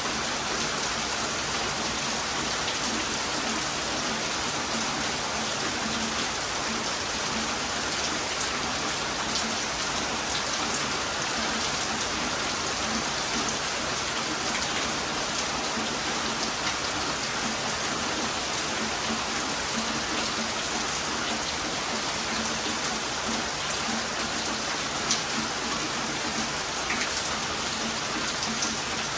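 Heavy rain falling steadily, a dense even hiss with scattered drop ticks and one sharper tick near the end.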